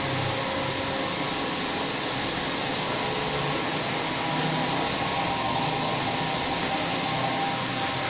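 Single-disc rotary floor scrubber running steadily with its pad spinning on a stone floor: an even, unbroken whir with a strong hiss and a few faint steady tones underneath.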